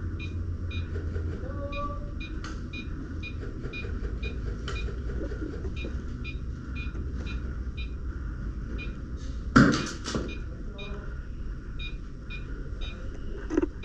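Short electronic beeps repeating about twice a second over a low steady hum, with a loud sudden clatter about ten seconds in and a smaller knock just before the end.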